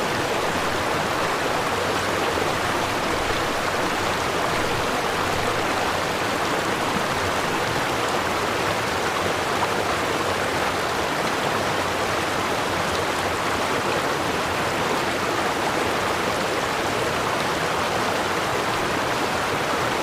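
River water flowing steadily, a continuous rushing babble with no change in level.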